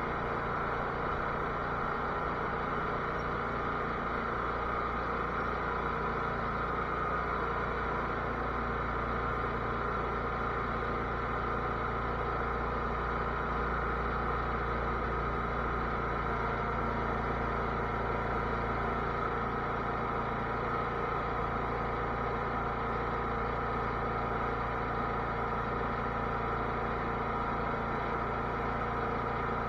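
Cub Cadet lawn tractor's engine running at a steady speed, an even hum with no change in pitch.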